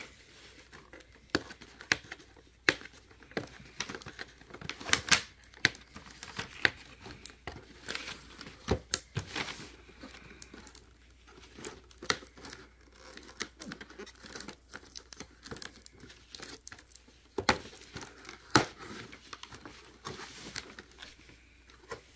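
Toy packaging being torn and crinkled by hand as the toy is pulled out of its box: irregular crackles and sharp snaps, the loudest about five seconds in.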